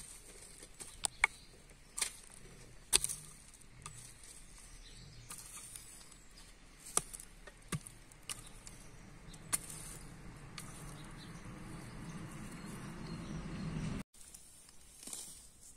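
Hand hoe working clumpy garden soil: irregular sharp strikes of the blade into dirt and stones every second or two, then a steadier rustling noise that stops abruptly near the end.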